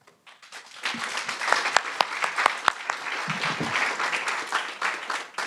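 Audience applauding, building up within the first second and then going on steadily, with a few sharp single claps standing out around two seconds in.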